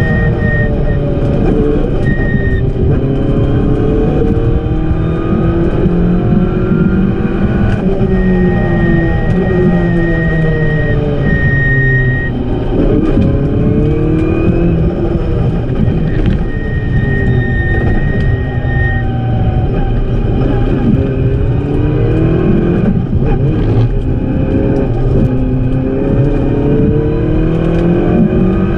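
Renault Clio 172 Cup rally car's four-cylinder engine heard from inside the cabin, revving up and dropping back again and again as it is driven hard through the gears, with tyre and road rumble underneath. A high steady beep sounds on and off several times.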